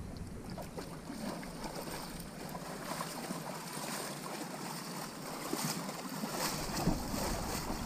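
Water splashing and sloshing against a boat's hull as a hooked sailfish thrashes alongside while held by the bill, with wind on the microphone. The splashing grows busier in the second half.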